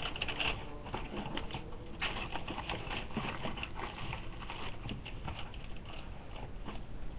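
Water being poured into an MRE flameless ration heater's plastic sleeve, heard as dense, irregular crackling and patter.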